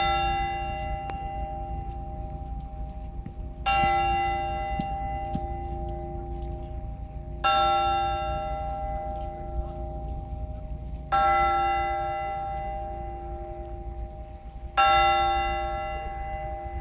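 A single Russian Orthodox church bell tolled slowly, five strokes at an even pace of about one every three and a half to four seconds, each left to ring out before the next. This slow single-bell tolling is the blagovest that calls the faithful to a service.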